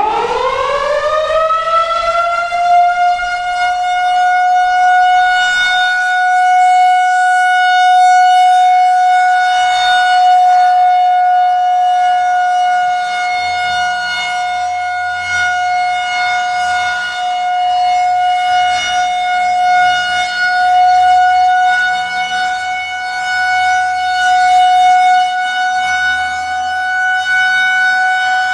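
Federal Signal 2001-130 electromechanical warning siren winding up, its pitch rising over the first few seconds to a steady high tone that then holds: the steady Alert signal of a siren test. The loudness swells and eases a little as the siren head rotates.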